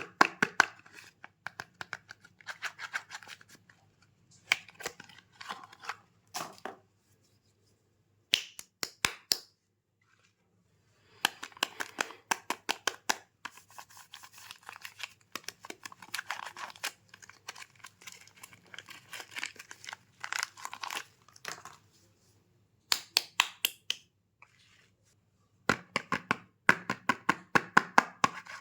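Soap packaging being unwrapped by hand: bursts of crinkling, tearing and crackling clicks, separated by a few short silences.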